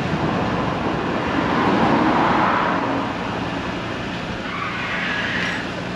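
A road vehicle passing by: a broad tyre-and-engine noise that swells to its loudest about two seconds in and then fades, followed by a smaller, higher swell near the end.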